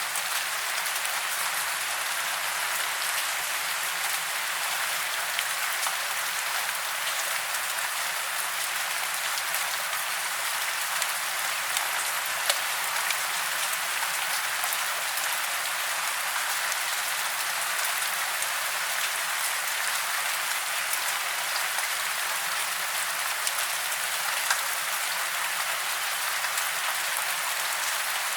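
Steady rain: an even hiss with scattered sharper drop ticks.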